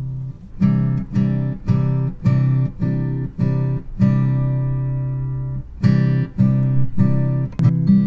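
Background music: an acoustic guitar strumming chords about twice a second, with one chord left ringing for nearly two seconds midway before the strumming picks up again.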